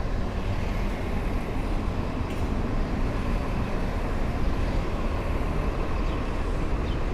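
Steady downtown street noise: a continuous rumble of traffic with no distinct events standing out.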